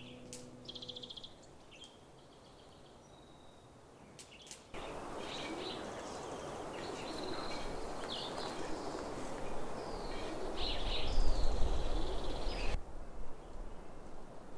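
Wild birds chirping and calling in short phrases. About five seconds in, an abrupt cut brings a steady rushing noise under the bird calls, which grows louder with low rumbling on the microphone before cutting off suddenly near the end.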